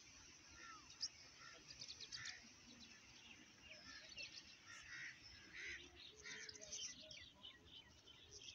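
Faint birds chirping and calling, many short overlapping chirps and whistles.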